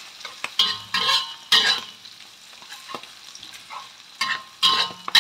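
A metal spatula scraping and clanking against a wok as sliced shallots, garlic and chilies are stir-fried in hot oil, with a low sizzle underneath. The strokes come in two bunches, near the start and near the end, with a quieter stretch of sizzling between.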